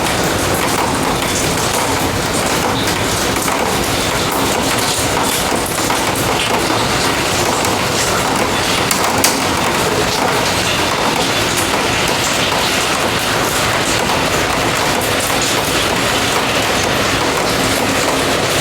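Steady rain: a dense patter of drops with no letup.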